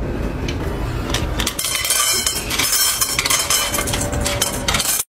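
Hard objects clattering and clinking: a dense run of knocks that grows busier about a second and a half in.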